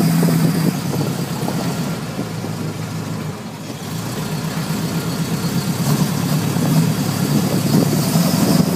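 Buick 401 nailhead V8 of a 1949 Ford F1 truck running under way, heard from inside the cab. The engine note eases off a couple of seconds in, then builds again toward the end.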